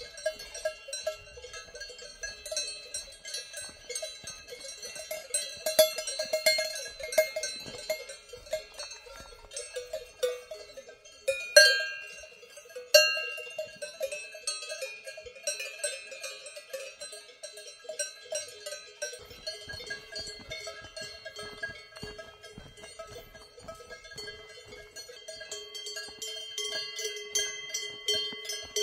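Several cowbells on resting and grazing cows clanging irregularly and overlapping, with a few louder, closer clangs around the middle.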